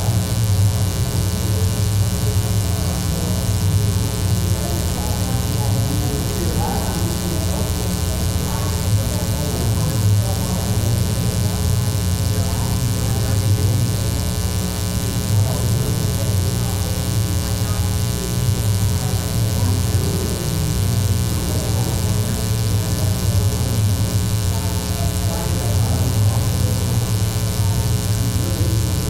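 Steady electrical mains hum, a low buzz with many evenly spaced overtones, dominating the sound, with faint indistinct voices under it.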